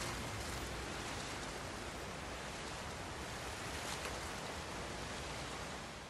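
End of a soundtrack song: its last low sustained notes die away just after the start, leaving a steady hiss that carries on until the track starts to fade at the end.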